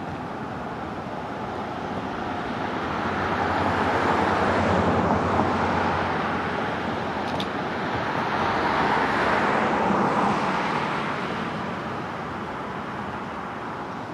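Road traffic passing: two vehicles go by one after the other, their tyre and engine noise swelling and fading. The first peaks about five seconds in, the second about nine to ten seconds in.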